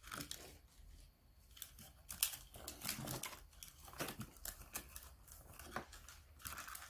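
Faint crinkling of plastic packets and scattered light clicks as gloved hands rummage through a plastic compartment tackle box.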